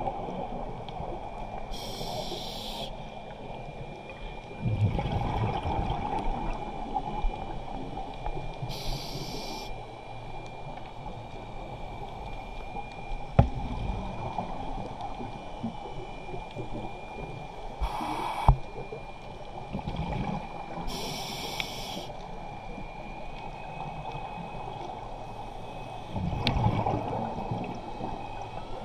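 Scuba diver breathing through a regulator underwater: a short hiss of air on each inhale and a low rush of bubbles on each exhale, several breaths in all. A faint steady high tone runs underneath, and there are two sharp clicks.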